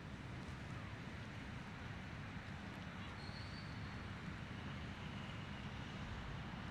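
Steady outdoor background noise, mostly a low rumble of wind buffeting the microphone, with a faint short high note about three seconds in.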